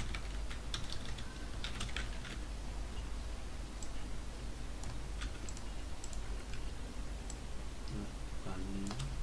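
Computer keyboard typing: scattered keystrokes in small irregular clusters, over a steady low hum.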